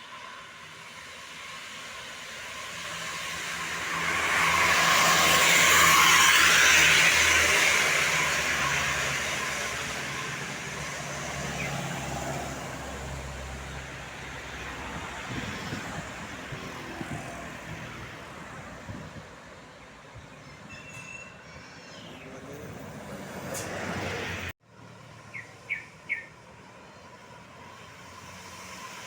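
Road traffic: a heavy vehicle's engine and tyre noise swell to a peak about five seconds in as it passes, then slowly fade. After a sudden cut near the end come three short horn beeps.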